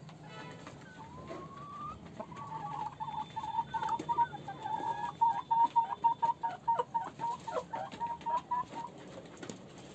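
Desi hens clucking: a rising call about a second in, then a long run of short, quick clucks, about three or four a second, with sharp clicks mixed in.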